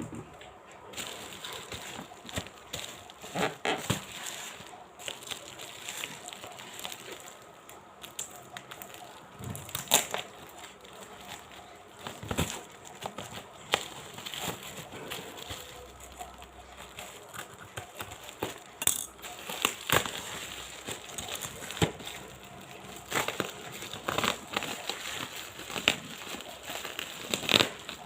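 Packaging of a newly delivered tripod being handled and opened: continuous rustling with many scattered clicks and knocks.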